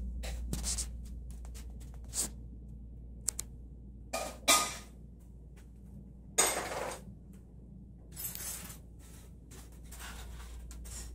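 Room tone: a steady low hum with a handful of short rustling noises.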